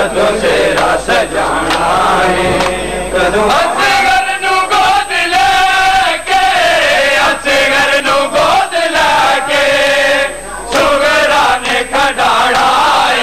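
A group of men chanting a noha, a mourning lament, with lines held and bending in pitch and short pauses between phrases. Sharp, repeated slaps of hands on chests (matam) keep time under the chant.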